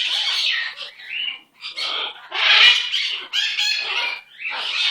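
Pet parrot singing and chattering in three long phrases, with short breaks between them.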